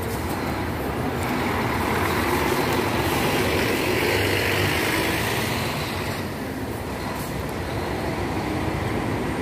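Diesel intercity coaches driving slowly past close by, engine rumble and tyre hiss swelling to a peak about halfway through and then easing off.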